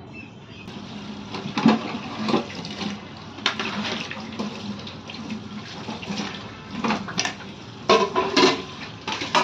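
Tap water running into a kitchen sink while dishes are washed, with repeated clanks of pots and utensils knocking together, loudest near the end.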